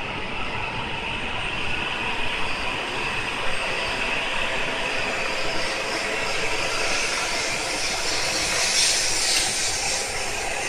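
Tohoku Shinkansen Yamabiko train running: a steady rumble and hiss of wheels and running gear on the rails, with faint steady tones and a little more hiss near the end.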